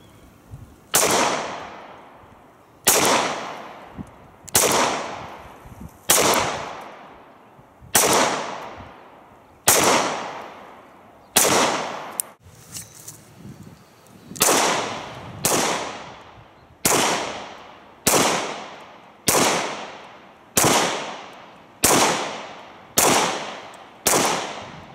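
Springfield XDs 4.0 9mm pistol firing about sixteen single shots at a slow, steady pace, one every one to two seconds. Each shot is followed by an echo that fades over about a second, and there is a short break about halfway through.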